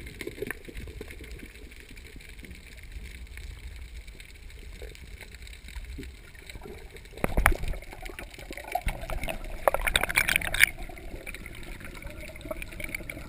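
Underwater sound heard through a camera's waterproof housing: low muffled water noise with faint scattered clicks, and louder bursts of bubbling and rushing about seven and ten seconds in.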